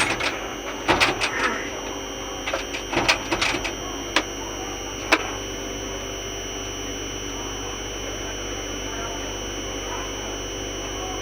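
Electrical contactor humming: a steady, unchanging buzz made of several fixed tones. A handful of sharp clicks and knocks sound over it in the first five seconds.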